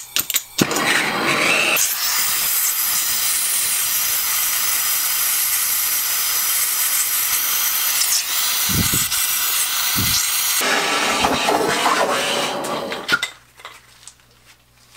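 Striker clicks, then a BernzOmatic MAP gas hand torch lights and runs with a loud steady hiss, with two low thumps near the middle. About ten and a half seconds in its sound changes and then cuts out about two seconds later. This is the torch throwing flame from places it shouldn't, which the owner thinks may come from a nearly empty cylinder and low pressure.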